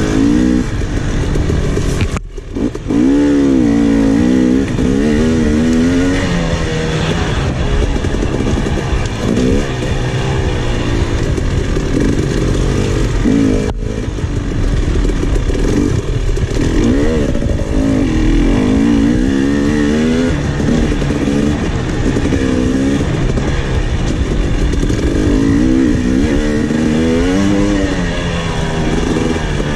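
KTM 300 XC's two-stroke single-cylinder engine being ridden on a trail, its revs rising and falling constantly with the throttle, with a brief drop in loudness about two seconds in.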